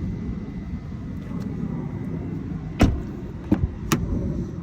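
Steady low background rumble, with three short, sharp knocks a little more than halfway through, the first the loudest.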